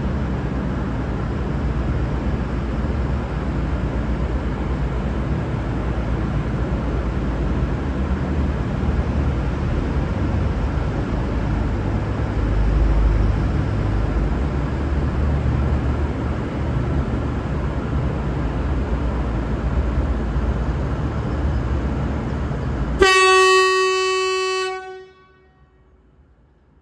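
V/Line VLocity diesel railcar with a steady low rumble. The rumble stops abruptly about 23 seconds in, as the train horn sounds one short, loud, low-note blast that fades out within about two seconds.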